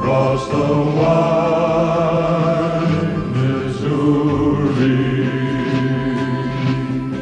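Men's vocal group singing slow, held chords in harmony, without clear words.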